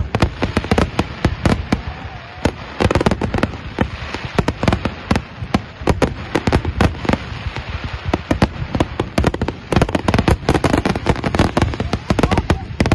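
Aerial fireworks bursting in a rapid, dense barrage of bangs and crackles, many reports a second.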